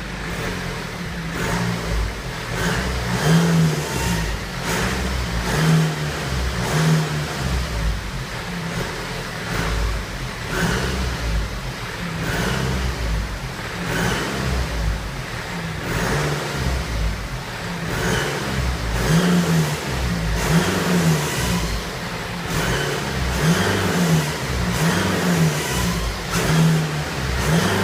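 BMW 320d F31 with its 2.0-litre four-cylinder diesel, making the strange noise its owner is recording: a low rumble that swells and falls, with irregular knocks recurring about every second.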